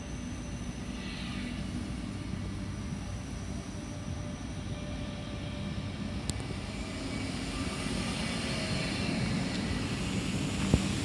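Electric train running: a steady rumble that grows louder in the second half, with a sharp click about six seconds in and a short knock near the end.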